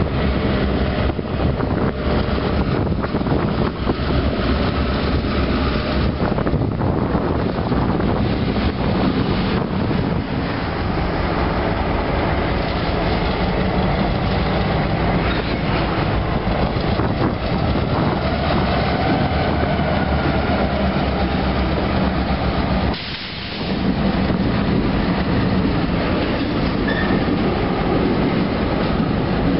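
Two Iowa Interstate Railroad diesel locomotives hauling tank cars, their engines running with a low steady drone and the wheels rolling on the rails. The sound briefly drops away for about a second around two-thirds of the way through.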